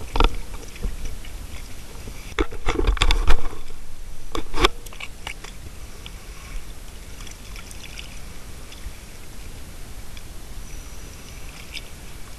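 Close knocks and clatter of scuba gear being handled, the loudest a cluster about two to three seconds in and one sharp knock just before five seconds, over a steady hiss of wind and water.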